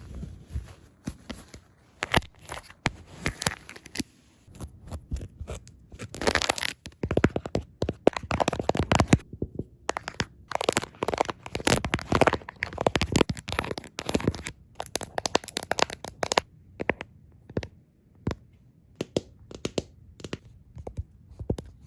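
Fast tapping and scratching on phone cases close to the microphone, in quick irregular runs of clicks with short pauses between them.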